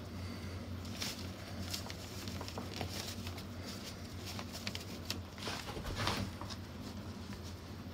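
Handling noise as fingers press and feed glued baize cloth into a pocket opening, with newspaper rustling and crinkling: scattered soft taps and crinkles, and a longer rustle about six seconds in, over a steady low hum.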